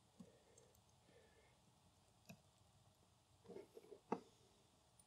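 Faint computer keyboard keystrokes as a file name is typed: a few scattered clicks, then a short run of them about three and a half to four seconds in, over near silence.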